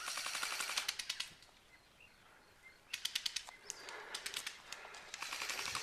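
Airsoft guns firing full-auto bursts, a rapid clatter of sharp clicks. The first burst stops about a second and a half in, and more bursts start about three seconds in.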